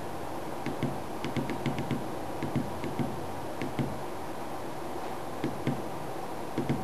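Small tactile pushbuttons on a breadboard clicking as a finger presses them repeatedly, in quick irregular runs of clicks, over a steady low hum.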